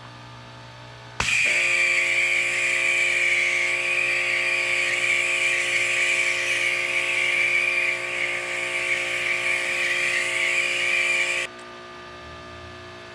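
Ryobi electric pressure washer spraying through a foam blaster attachment, with a high-pitched, horrible shrill whine. It starts suddenly about a second in and cuts off suddenly near the end, when the trigger is released.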